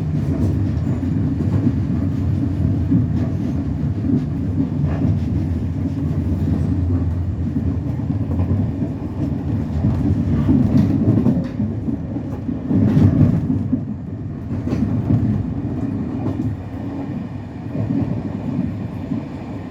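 Freight train of Eas open wagons rolling past, a steady low rumble with occasional wheel clicks, easing slightly near the end.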